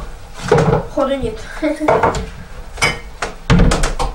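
Kitchen clatter of dishes and cutlery: a run of knocks and clinks of crockery and utensils on the counter, the loudest near the end.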